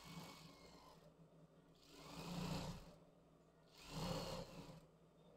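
Sewing machine running in two short stitching bursts of about a second each, faint, with a low hum in between, sewing the seam that forms the elastic channel along a sleeve's bias binding.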